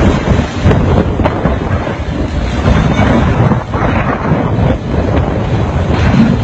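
Wind buffeting the microphone over a low, steady rumble from a heavy vehicle.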